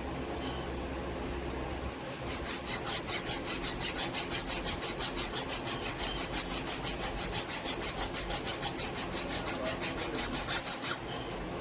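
Rapid, even back-and-forth abrasive hand strokes on the wood of a cricket bat, starting about two seconds in and stopping shortly before the end.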